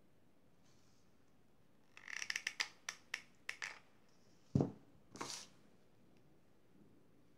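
Hands handling a satin ribbon bow on a table: a quick run of small crackling clicks, then a single low thump about halfway through, followed by a brief rustle.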